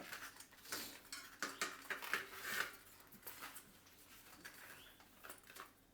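Hands working a new inner tube into a bicycle tyre on the wheel rim: soft rubbing and scuffing of rubber with small clicks, busier in the first few seconds and sparser after.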